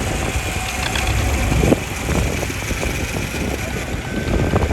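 Small antique John Deere tractor engine running at a slow, steady pace as it passes in low gear, with a sharp knock about a second and a half in.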